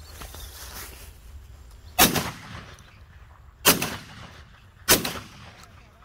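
Three shotgun shots fired at birds overhead: the second about a second and a half after the first, the third a little over a second later, each with a short echo.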